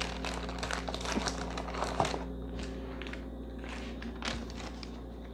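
Plastic grocery packaging and bags crinkling and rustling as items are picked up and moved around, with light knocks of items being set down; busiest in the first two seconds or so.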